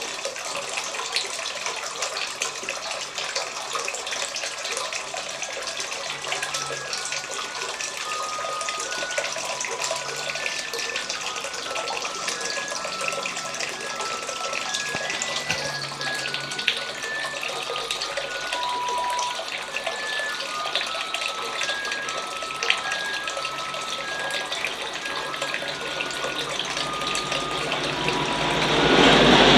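Homemade indoor waterfall fountain running: water falling and splashing steadily. Faint short high tones are scattered throughout, and the water sound swells louder near the end.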